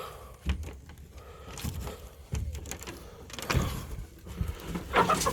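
Irregular knocks, rattles and rustling of things being handled.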